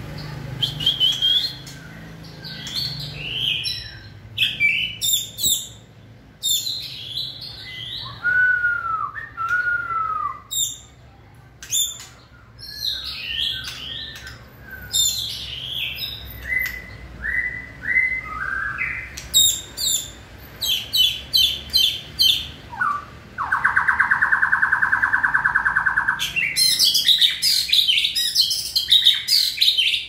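Caged male white-rumped shama singing in breeding-season form, a varied song of loud whistled phrases and sharp notes. About three-quarters of the way through it gives a rapid buzzing trill for about three seconds, then a dense run of high notes.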